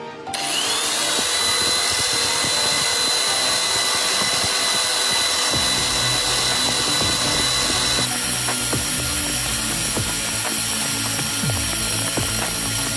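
A small rotary power tool spins up with a rising whine, then runs steadily while grinding and polishing the end of a model drive-shaft rod into a rounded shape. Its tone shifts about eight seconds in.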